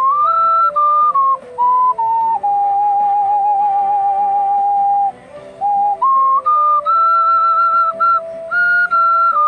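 Ocarina playing a melody over a lower accompanying line, in short stepwise notes with a long held note with vibrato in the middle, then climbing higher near the end.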